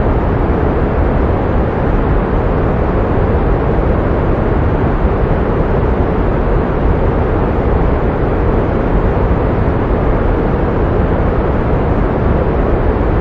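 Steady pink noise: an even, unchanging hiss, heavier in the lows and softer toward the highs.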